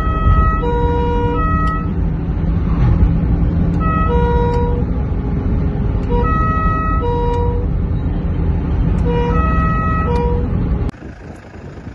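Police car's two-tone siren sounding in four short bursts, each alternating between a high and a low note, over loud engine and road noise inside the moving car. The sound drops away abruptly near the end.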